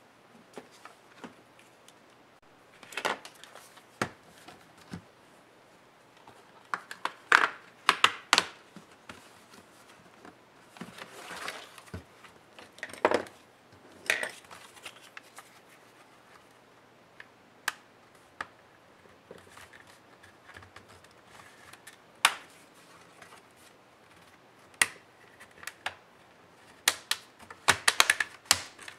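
Plastic casing of a Lenovo ThinkPad E550's display lid being handled and pried apart by hand: scattered clicks and snaps of plastic clips and panels, in clusters with quiet gaps between.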